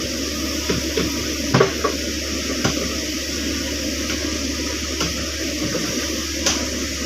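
Caterpillar 307.5 mini excavator running steadily while digging out a ditch, with a few sharp knocks from the bucket and arm.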